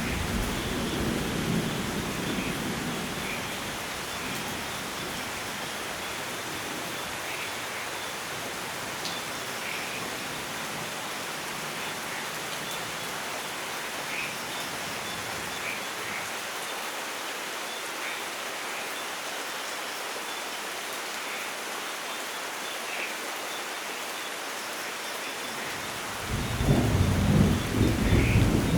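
Steady rain hissing, with thunder: a low rumble dies away over the first few seconds, and a loud new roll of thunder breaks out a couple of seconds before the end.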